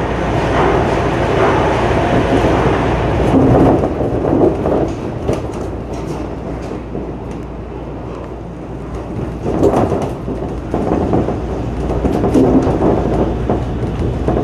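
Shonan Monorail 5000-series suspended train running on its rubber tyres, heard from inside the cab: a steady rumble that swells louder about three seconds in, again near ten and twelve seconds, with a few faint clicks, as it comes up to a station.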